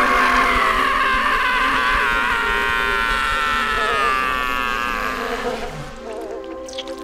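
Cartoon buzzing of a flying insect: a high, dense, wavering buzz that fades out about five and a half seconds in.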